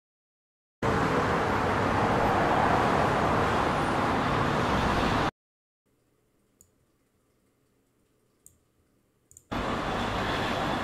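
Street traffic ambience sound effect, cars on a road, heard as a steady noise that starts about a second in and cuts off abruptly after about four seconds. It starts again near the end, a little quieter after its volume has been turned down. A few faint clicks fall in the gap.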